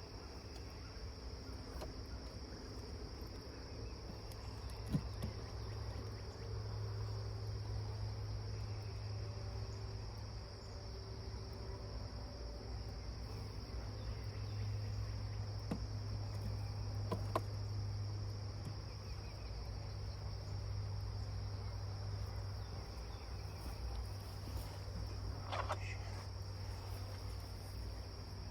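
Steady insect sound: a high, unbroken cricket-like trill with a steady low hum beneath it and a few soft knocks.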